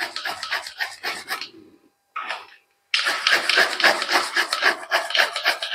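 Bottle gourd being grated on a hand grater into a steel bowl: quick rasping strokes, about five a second, with a pause in the middle before a steady run of strokes.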